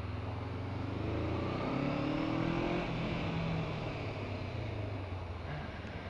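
Honda CB500F's parallel-twin engine pulling under throttle while riding, its pitch rising for the first few seconds and then holding steady, heard over steady wind and road noise.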